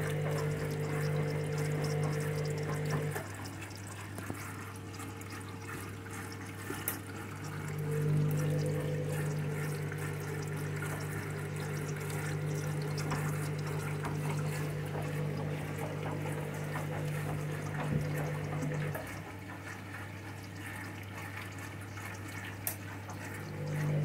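Candy front-loading washing machine filling for its fabric-conditioner rinse: water running into the drum over a steady low hum, while the drum motor hums in spells as it tumbles the load, pausing twice for about four seconds.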